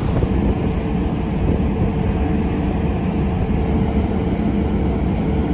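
Wind buffeting the microphone on the open deck of a ferry under way, a steady low rumble with a faint machinery hum underneath.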